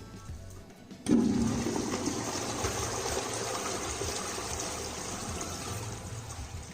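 Toilet being flushed: a sudden rush of water about a second in, then a steady gushing that eases slightly near the end.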